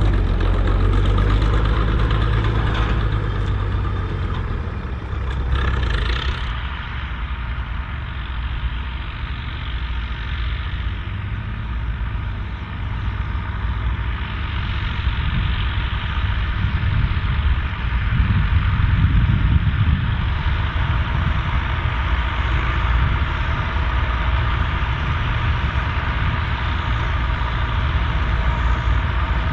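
Volvo BM 2654 tractor's diesel engine running steadily while ploughing, a continuous low drone. About six seconds in the sound turns duller as the higher hiss drops out.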